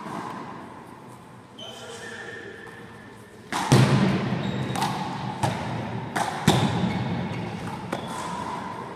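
A handball rally in a gym: a small ball slapped by hand and smacking off the wall and floor, a string of sharp echoing impacts that come thick from about three and a half seconds in, with trainers squeaking on the floor in between.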